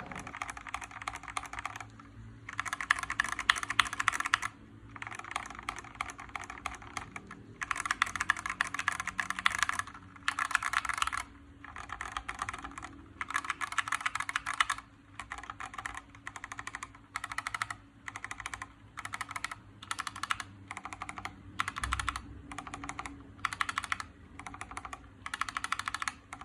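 Typing on a mechanical keyboard with Gateron Yellow linear switches: fast runs of key clacks lasting a second or two, broken by short pauses, about a dozen runs in all.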